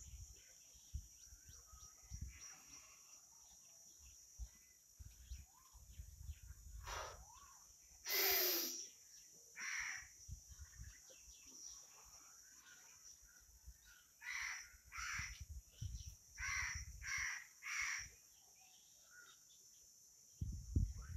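Crows cawing in short repeated calls, the loudest about eight seconds in and a quicker run of caws a few seconds later, with faint low rumbles at times.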